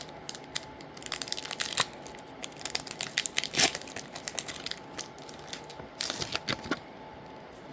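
Foil booster pack wrapper being torn open and crinkled, in a run of sharp crackles.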